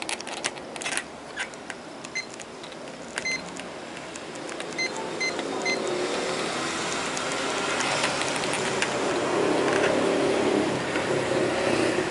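Tactile push-button switch on a keyboard circuit board clicking as it is pressed, with about five short beeps from a multimeter's continuity tester as the cleaned contact closes. From about five seconds in, a louder rushing noise swells up and covers the rest.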